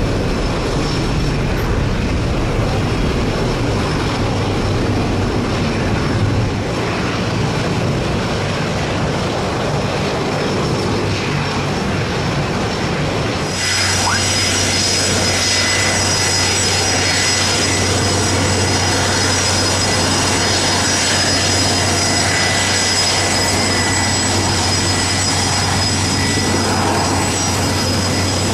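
Jet aircraft engines running loud: a noisy low rumble for the first half, then, after a sudden change about halfway in, a steady low hum with a high, even whine.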